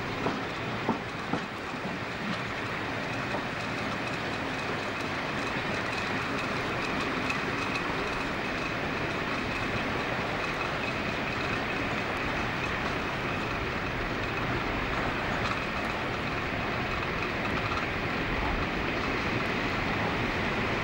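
Diesel multiple unit running along a station platform, heard from on board: a few wheel knocks over rail joints in the first couple of seconds, then a steady running rumble with a faint high whine.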